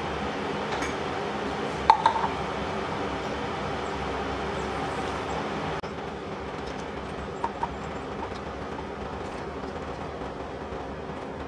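Steady rumbling hiss of a kitchen appliance running, with a few sharp clinks about two seconds in and lighter taps later as a plastic lemon squeezer is handled on the worktop.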